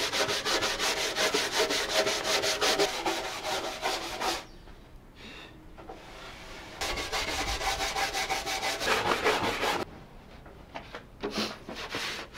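Rapid back-and-forth rubbing strokes on wood by hand, several a second. The rubbing comes in three spells, with short pauses about four seconds in and again about ten seconds in.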